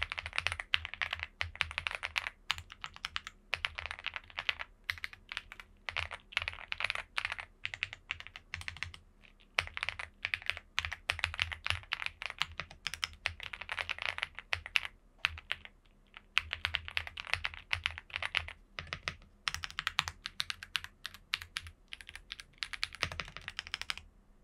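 Typing on a Chilkey ND75 mechanical keyboard with EF Dopamine Blue switches in an O-ring mount: quick runs of clacking keystrokes with short pauses between, stopping just before the end.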